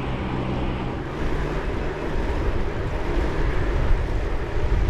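Wind rumbling over an action camera's microphone on a moving bicycle, mixed with steady tyre and road noise.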